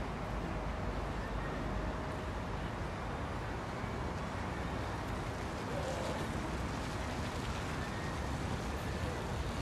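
Steady outdoor city ambience: a low rumble under an even hiss, with no single sound standing out.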